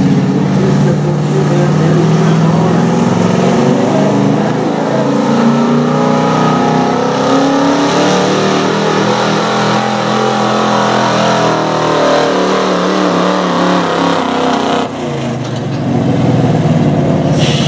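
Gas-engined 1970s Dodge pickup pulling a weight-transfer sled, its engine held at high revs under heavy load, the pitch wavering as the tyres hook and slip. The engine sound drops away sharply near the end.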